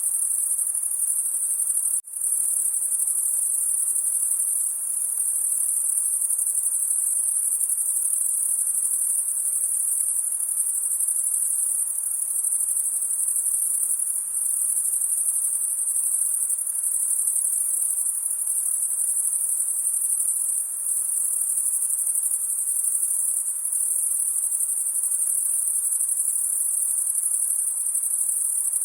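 A dense chorus of crickets on a summer night, a continuous high-pitched trill, with a very brief dropout about two seconds in.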